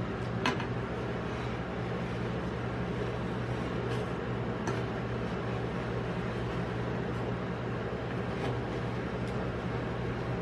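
Metal spatula scraping frozen ice cream off a steel cold plate and pushing it into rolls, with a few light clicks of the blade on the plate, over the steady hum of the cold plate's refrigeration unit.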